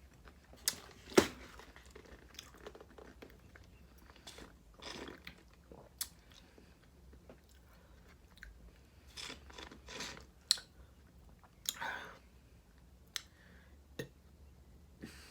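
Close-miked mouth sounds of eating: chewing with wet clicks and smacks in scattered short bursts, the loudest a sharp click about a second in.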